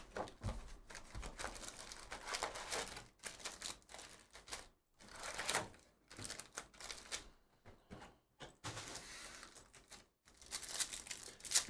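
Foil wrappers of Donruss basketball card packs crinkling as the packs are pulled from a cardboard hobby box and stacked, with irregular light clicks and taps of cardboard and packs being handled.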